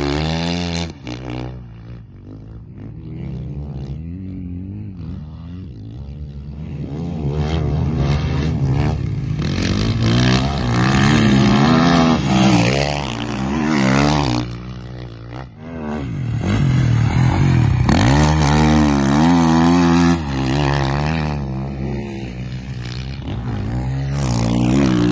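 Dirt bike engine revving and easing off as it is ridden hard around a motocross track, its pitch climbing and dropping with the throttle. It fades as the bike rides off about two seconds in, then comes back loud as it returns past, easing off briefly a couple of times.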